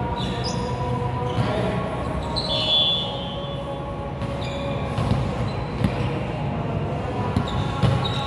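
Indoor volleyball rally in a large, echoing gym: several sharp hits of the ball in the second half, a brief high shoe squeak on the court about two and a half seconds in, and a steady hall hum underneath.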